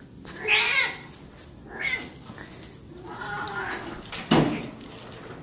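Elderly Siamese cat meowing repeatedly, about four meows, the last one the loudest.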